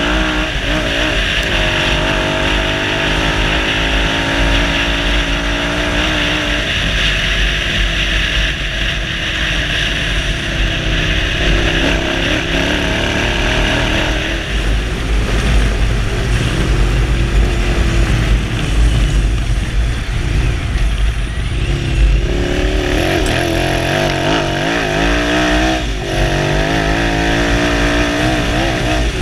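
Suzuki SV1000 90-degree V-twin motorcycle engine powering an off-road buggy, driven hard with its pitch rising and falling repeatedly as the throttle is opened and closed.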